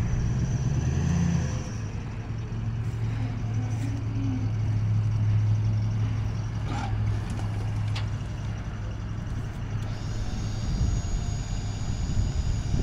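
Home-built dump truck running with its hydraulic hoist holding a loaded bed part-way up: a steady low hum that gives way near the end to a higher whine. The hoist will not lift further, which the owner puts down to low hydraulic fluid.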